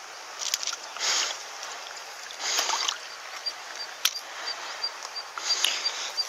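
A landed sea bass splashing in shallow river-edge water while held by a fish lip grip: three short splashes, about a second in, about two and a half seconds in, and just before the end, with a few light clicks between.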